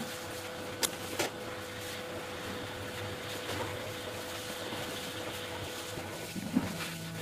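Hot-air rework gun blowing steadily with a hum, heating a phone's BGA chip to melt its solder for removal. Two sharp ticks come about a second in; the air stops about six seconds in, followed by a single click.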